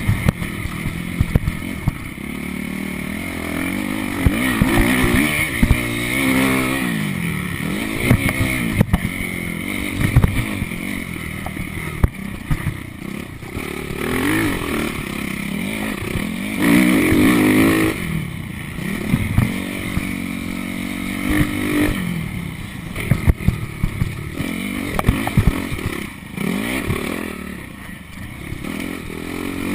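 Motocross bike engine heard from on board, revving up and dropping back again and again as the rider goes through corners and jumps. Sharp knocks and rattles from the bike hitting bumps are scattered through it.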